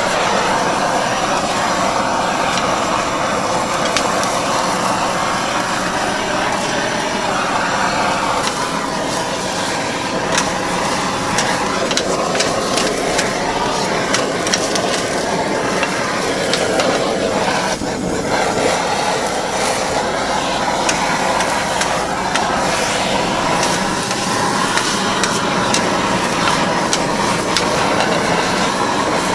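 Handheld gas torches hissing over a steel griddle while cubes of steak, shrimp and onions sizzle and crackle, with a metal spatula scraping the plate now and then.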